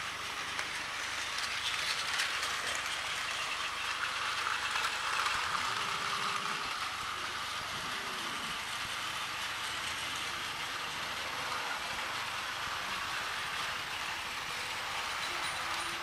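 Several battery-powered Plarail toy trains running on plastic track: a steady whir of their small motors and gears with the rattle of wheels on the track.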